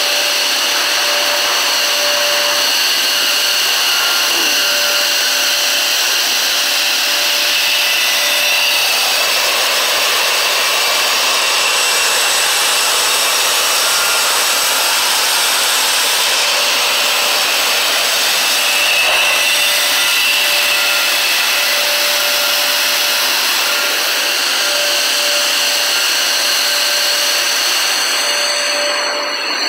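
Plastic resin pellets and air rushing through a flexible metal conveying hose as a plastic-lined box is filled. A loud, steady rushing hiss, with a steady high whine from the conveying system.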